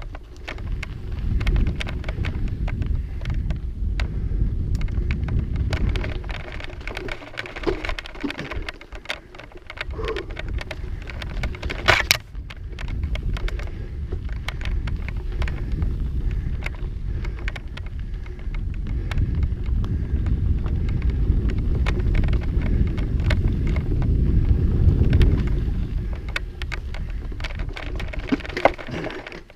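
Mountain bike ridden over a rocky trail: a dense clatter and rattle of tyres and bike parts on rock, over a low rumble of wind on the microphone. One sharp, loud clack comes about twelve seconds in.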